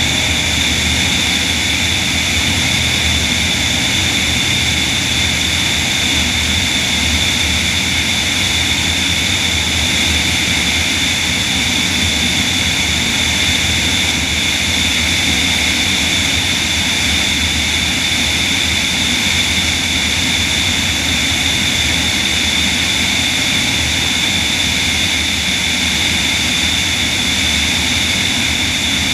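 The magniX magni500 all-electric motor and propeller of a DHC-2 Beaver floatplane in steady flight, running at a constant setting with a high-pitched whine over the rush of wind past the wing.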